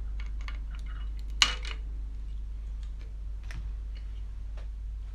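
Flush side cutters snipping plastic kit parts off a sprue, one sharp snap about a second and a half in, among lighter clicks of hard plastic parts being handled.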